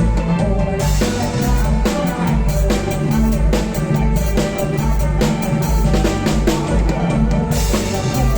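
Live kantrum band playing an instrumental passage, with a drum kit keeping a steady beat over a low bass line and held melody notes.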